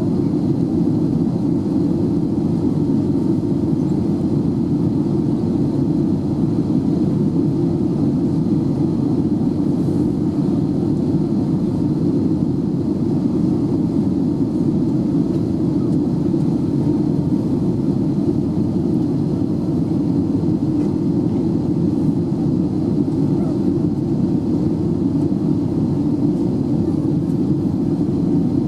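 Steady in-flight cabin noise inside an Airbus A320: a constant low rush of airflow and engine noise, unchanging throughout.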